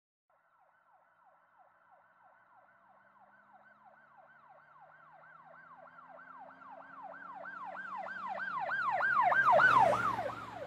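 Ambulance siren in a fast yelp, about four wails a second, growing steadily louder as it approaches. A vehicle engine runs beneath it. The siren peaks about a second before the end, then dips in pitch and falls off as it passes.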